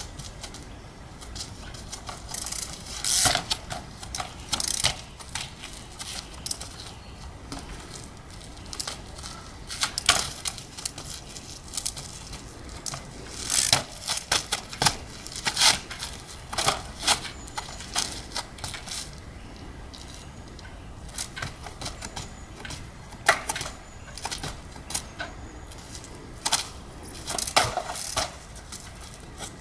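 Trials bike hopping and landing on large stone blocks: sharp, irregular knocks and clatters as the wheels and frame strike the rock, several of them ringing briefly.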